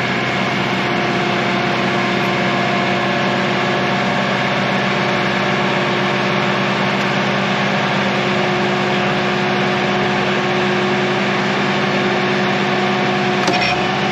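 Generator engine running at a steady speed, powering the farm during a power outage, with a brief click near the end.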